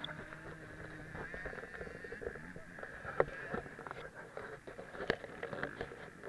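Off-road motorcycle engines revving and running as the bikes ride past, with scattered short clicks.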